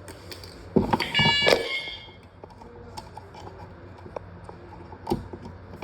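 Fire alarm hardware being handled: a sudden knock about a second in, followed by a brief high-pitched tone lasting about half a second. Light clicks follow, with a sharper click near the end.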